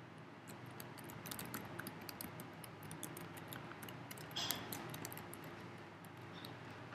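Computer keyboard being typed on: faint, quick, irregular key clicks, with a slightly louder clatter about four and a half seconds in.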